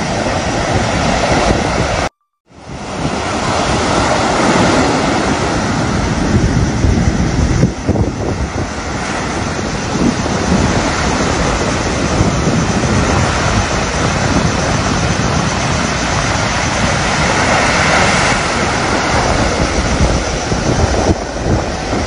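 Sea waves breaking and washing up a sandy beach in a steady, loud rush of surf, with wind rumbling on the microphone. The sound cuts out completely for a moment about two seconds in, then resumes.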